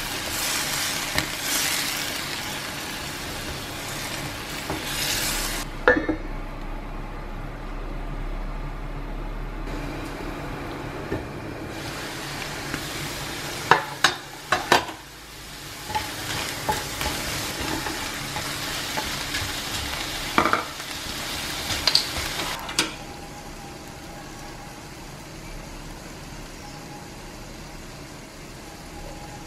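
Food sizzling and bubbling in a frying pan with a little water in it, while a wooden spatula stirs and knocks against the pan several times. Later the sizzling gives way to a quieter steady hum.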